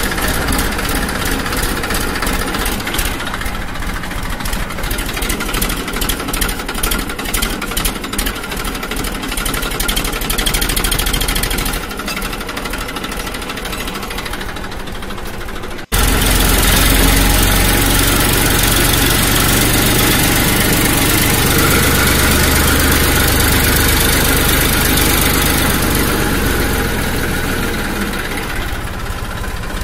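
A motor or engine running steadily. About 16 seconds in the sound cuts abruptly, and after the cut it is louder with more low rumble.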